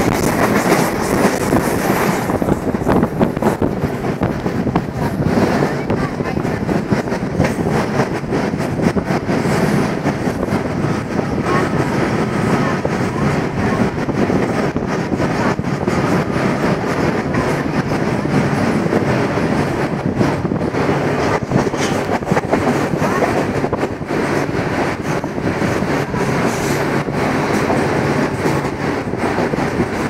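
Moving passenger train heard from inside the coach: a steady, loud running rumble with continual rail clatter.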